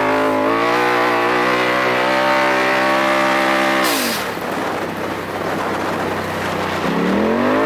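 Straight-piped exhaust of a 2018 Polaris RZR Turbo S side-by-side, its turbocharged twin-cylinder engine held at high revs under load. About halfway through the revs fall away off throttle with a short burst of hiss, then the engine revs back up near the end.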